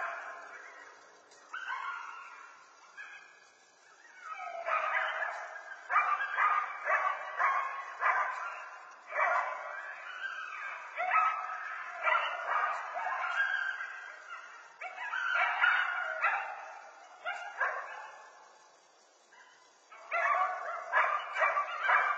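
A pack of coyotes yipping, barking and howling in bouts of overlapping calls, with brief lulls. The longest lull comes near the end, and then the calls start up again.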